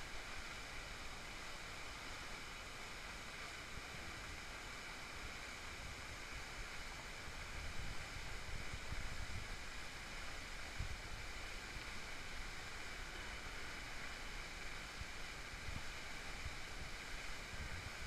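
Steady rushing hiss of running water from a lobby pool's water feature, with faint low bumps of wind on the microphone now and then. No macaw calls are heard.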